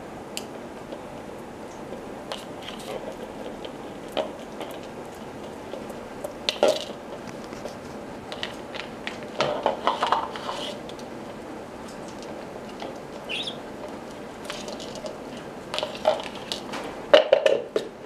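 Plastic bowl being pushed and tipped across a tile floor by an African red-bellied parrot: scattered knocks, clatters and short scrapes, in clusters, loudest near the end.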